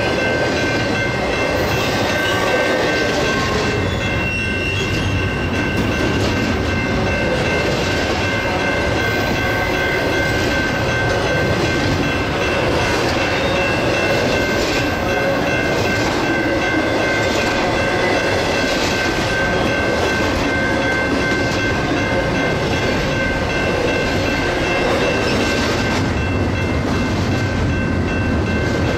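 Double-stack intermodal well cars rolling past close by: a steady, loud rumble of steel wheels on rail. A thin, steady high-pitched whine rides over it.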